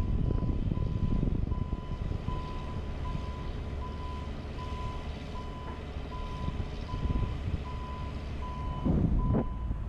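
JLG 150HAX boom lift's warning alarm beeping steadily, one high beep about every three-quarters of a second, over a continuous low rumble. A brief louder rush of noise comes near the end.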